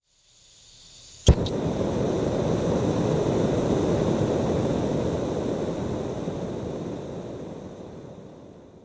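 Sound effect for an animated logo intro: a noise swells up, a sharp hit lands about a second in with a smaller one just after, then a long rumbling noise slowly fades away.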